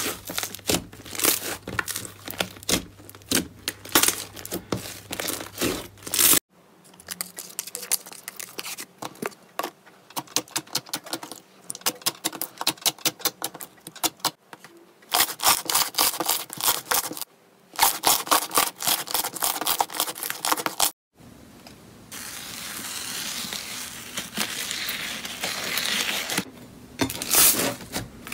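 Slime being squeezed, pressed and stretched by hand: rapid sticky clicks and pops as trapped air bursts, with a crackling hiss in one stretch, in several short segments that cut off abruptly.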